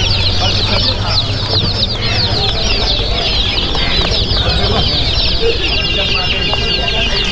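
A crowd of baby chickens (chicks) packed into netted baskets, peeping all at once: a dense, continuous chorus of short, high, downward-sliding cheeps.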